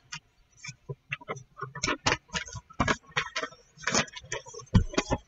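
Hands handling and pinning woven trouser fabric: irregular ticks and rustles, a few a second and unevenly spaced.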